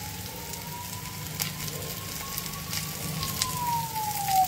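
Potatoes sizzling and crackling in oil in a frying pan. Behind it, outside traffic noise: a thin wailing tone that slowly dips, rises and dips again, siren-like.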